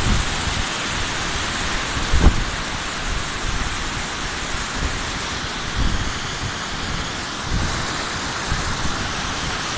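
Manthoka waterfall rushing, a steady loud roar of falling water, with a few low thumps, the loudest about two seconds in.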